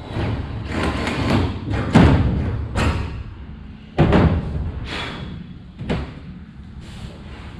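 Shop work on an aluminium boat hull: a stretch of rustling handling noise, then a string of irregular knocks and thuds about once a second, the loudest about two and four seconds in.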